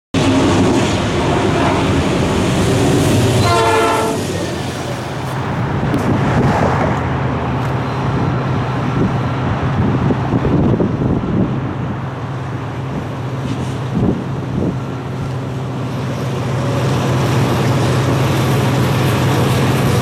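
Diesel freight locomotives running as a train approaches, with a steady low engine drone. A short locomotive horn blast sounds about three to four seconds in.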